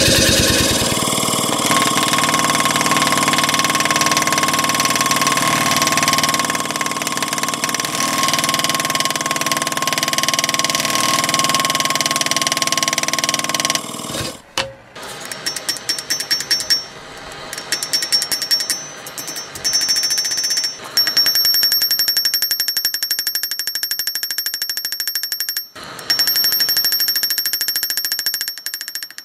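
Power hammer pounding hot steel in a fast, continuous run of blows for about fourteen seconds, then in shorter runs of blows with brief pauses between them.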